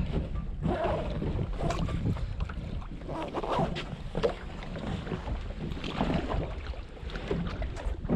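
Small fishing boat at sea: a steady low rumble of wind on the microphone, with scattered short knocks and rustles from handling on deck.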